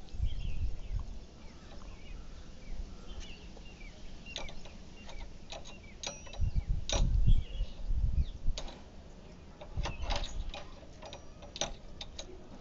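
A key clicking and scraping against a steel padlock hung on a door hasp as a toddler pokes it at the keyhole, the padlock and keys rattling in a run of sharp metallic clicks. Dull low thumps come about half a second in and again around seven seconds, the loudest near seven seconds.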